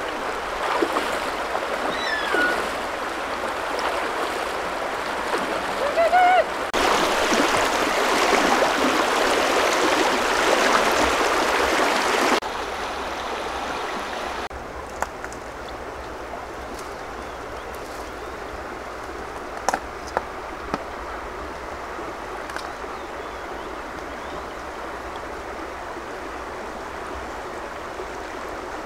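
Shallow river rushing and gurgling over rocks, a steady wash of water whose loudness jumps up and down several times; it is loudest in the middle stretch. A few short sharp ticks sound about two-thirds of the way through.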